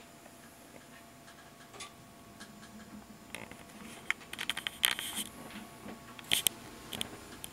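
Camera handling noise: scattered light clicks and brief scratchy scrapes, growing busier about three seconds in, as the camera is moved about at the opening of a steel fuel tank.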